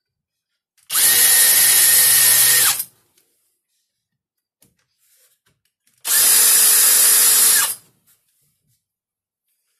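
Cordless drill run in two bursts of just under two seconds each, about five seconds apart, working into a plywood baseboard support. Each burst holds a steady whine that drops away as the trigger is released.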